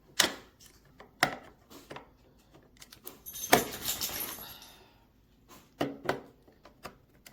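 Plastic travel plug adapters being handled: scattered clicks and knocks, with a longer rattling clatter about three and a half seconds in.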